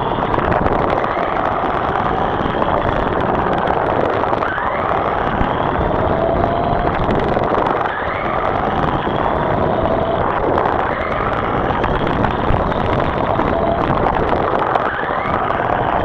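Remote control car driving, heard from a camera mounted on the car: a loud, steady noise of the running car with the motor's whine rising in pitch several times as it speeds up.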